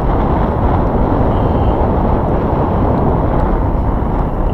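Strong wind buffeting the microphone: a loud, steady, low rumble.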